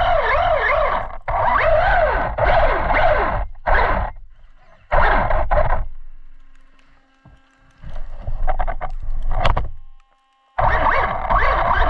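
Traxxas Rustler 4x4 VXL RC car running: its brushless motor whines up and down in pitch with the throttle over tyre and ground noise, in stop-start bursts, with a short drop-out about ten seconds in.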